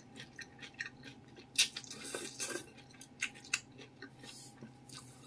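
Close-miked eating of mie goreng noodles in meatball soup: wet chewing and lip smacks with a few short slurps of noodle strands, loudest about a second and a half in and again around three and a half seconds.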